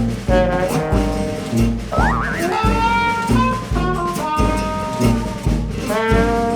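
Upbeat jazzy background music with brass horns over a steady drum beat, with a rising horn slide about two seconds in.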